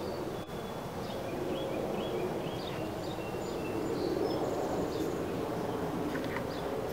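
A small bird chirping a quick run of short, high calls, with a couple more near the end, over a steady low hum of honeybees.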